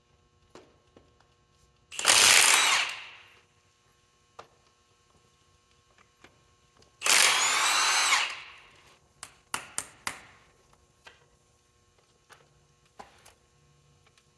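Handheld power tool run in two short bursts of about a second each, roughly two and seven seconds in, the second with a wavering motor whine. A handful of sharp metal clicks and knocks follow.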